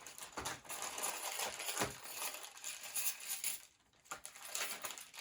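Small metal construction-set parts clinking and rattling as they are handled and sorted by hand, in irregular light clicks.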